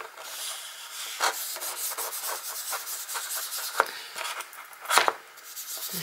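The sponge dauber tip of a Distress Paint bottle scrubs over a gessoed paper page in quick short strokes, a dry scratchy rubbing, with two louder strokes about four and five seconds in.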